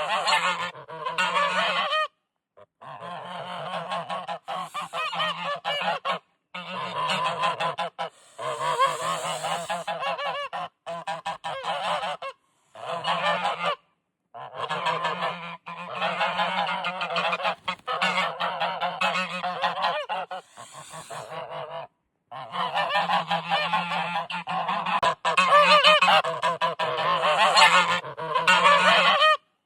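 Geese honking, many loud overlapping calls at once, in a string of short stretches broken by sudden silent cuts every few seconds.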